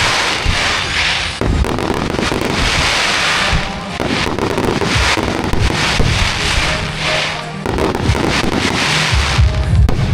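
Aerial fireworks bursting in quick succession, with sharp bangs and long swells of crackle from the shells, over music played with the show.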